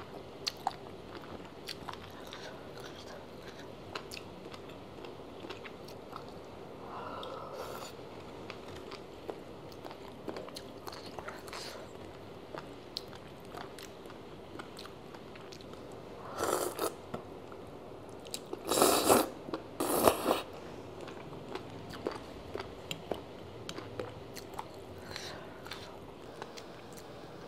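Close-miked eating: a person chewing shark fin soup, with small clicks of tongs and a porcelain spoon throughout. A few louder mouth noises come about two-thirds of the way through.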